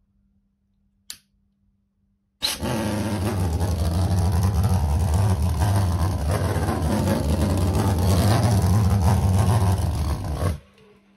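Small alcohol-fuelled pulse jet engine made from aluminium cans, water-cooled, firing: a deep, steady drone like a large motorcycle, starting suddenly about two and a half seconds in and cutting off abruptly after about eight seconds when the burn ends. A single sharp click comes about a second in, before it lights.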